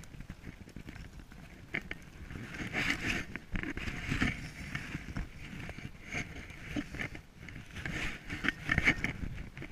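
Irregular crunching and scraping in deep snow, in uneven bursts with a few sharp clicks, as snow is dug away from the air exchanger vents.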